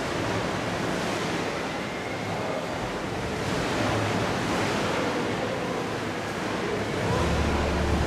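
Choppy wave-pool water rushing and splashing in a steady, full-range wash. Music comes in about a second before the end.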